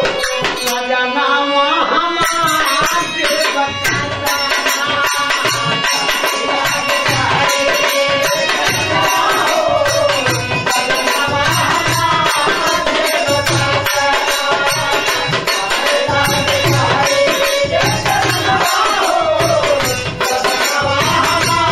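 Instrumental passage of Bhojpuri birha folk music: a hand drum keeps a quick, steady rhythm with jingling percussion, under a wavering melody line.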